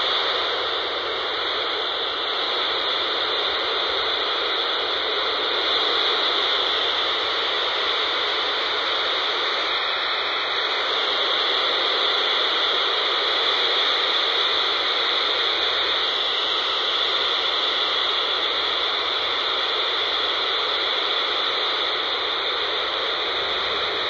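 Steady hiss of static from a hand-held scanner's speaker tuned to 29.800 MHz FM on the VHF low band.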